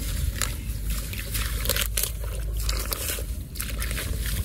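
A hand digging and squelching in wet mud and muddy water of an eel hole, with irregular short wet slaps and crackles over a steady low rumble.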